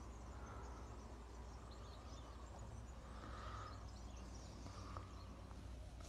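Faint outdoor ambience: a steady low rumble with a few soft, indistinct sounds and no clear event.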